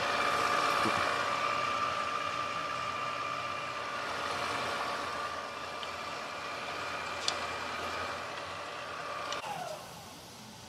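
Cylinder boring bar's electric motor and drive running with a steady whine as the bar is brought back up out of a freshly bored small-block Chevy cylinder. A sharp click about seven seconds in. The machine cuts off about nine and a half seconds in, its pitch falling as it winds down.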